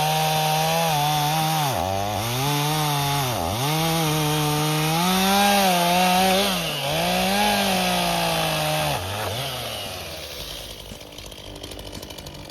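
Small two-stroke chainsaw running at high revs. Its engine speed dips sharply and recovers about four times as the chain bites into the wood, then the saw dies away near the end.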